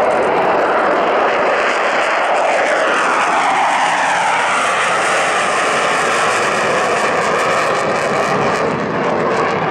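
Two F-15J fighters' twin turbofan engines at takeoff power as the pair climbs out after a formation takeoff: a loud, steady jet roar with a sweeping, shifting pitch as they pass.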